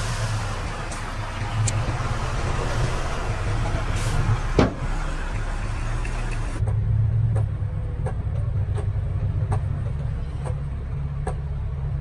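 Heavy diesel engine of earthmoving machinery running with a steady low drone. There is a sharp knock about four and a half seconds in, and through the second half light clicks repeat roughly every 0.8 seconds.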